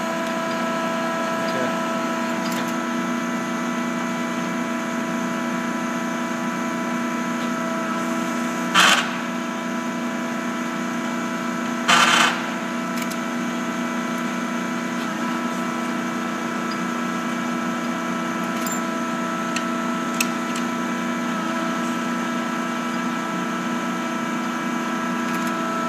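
Cazeneuve HB725 engine lathe running steadily, its headstock gearing giving an even hum with several held tones. Two short, loud clattering noises come about 9 and 12 seconds in.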